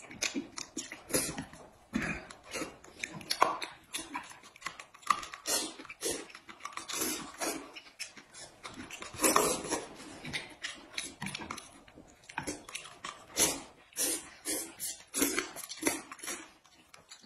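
Close-up eating sounds: noodles slurped from a bowl of noodle soup, with chewing, in short irregular bursts.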